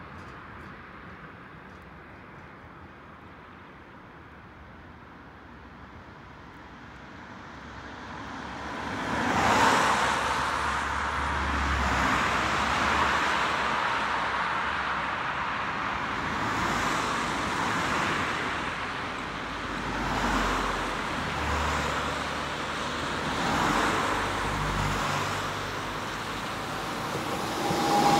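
Street traffic: faint at first, then rising about eight seconds in to a steady noise of passing road vehicles that swells and fades several times.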